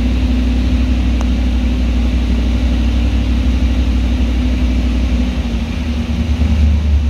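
Race engine idling on an engine dyno at about 1,450 rpm with no load, a loud steady low rumble. The idle sags a little near the end.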